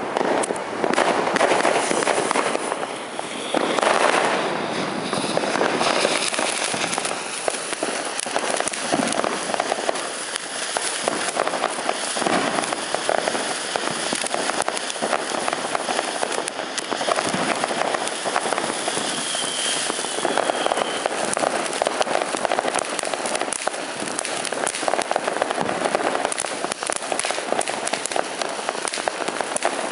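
Soaring Spirit cone fireworks fountain burning: a steady rushing hiss shot through with many fine crackles as it throws up sparks.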